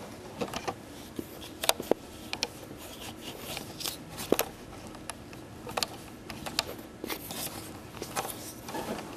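Camera handling noise: scattered, irregular light clicks, taps and rubbing as the camera is moved about, with no steady machine sound.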